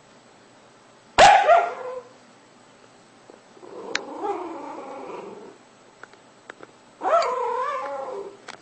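A dog vocalizing in its sleep: three short bouts of sound with the pitch wavering up and down, the first sudden and loudest, the middle one softer.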